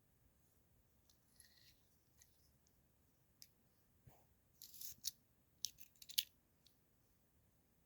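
Quiet handling while opening a boxed airsoft gun: a few faint light clicks, then about halfway a short scrape, followed by a quick cluster of sharp clicks.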